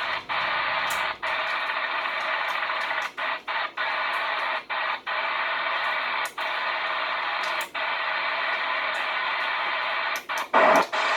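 CB radio receiver hiss on an open channel with no readable station, broken by many brief dropouts, heard while listening for distant skip on a night of bad conditions. About ten and a half seconds in there is a short, louder burst.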